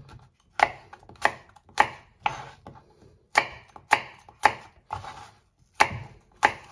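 Kitchen knife chopping apple quarters into rough chunks on a plastic cutting board: sharp knocks of the blade through the fruit onto the board, roughly two a second with a couple of short pauses.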